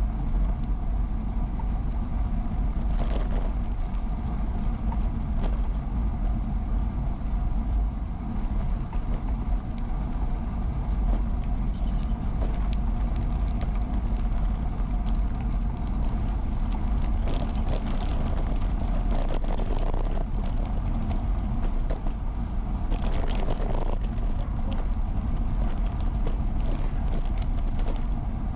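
Vintage Peugeot UJ-10 ten-speed bicycle riding along a road: a steady low rumble of tyres and wind, with a few short rattles now and then.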